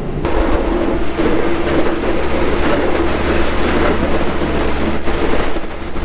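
Heavy equipment plowing snow: a steady diesel engine drone under a loud, rough rush of the blade pushing snow across asphalt. The noise starts and stops abruptly.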